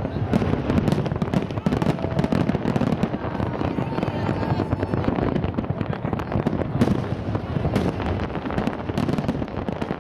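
Aerial fireworks shells bursting in a continuous rapid barrage of booms and crackles, with no pauses between them.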